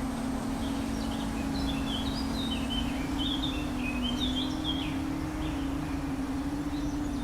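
Palm-size FPV drone's motors buzzing steadily, the pitch wavering slightly with throttle, with birds chirping over it for the first few seconds.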